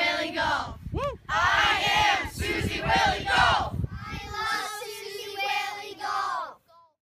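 A group of children shouting and cheering together, several voices at once. The sound stops suddenly near the end.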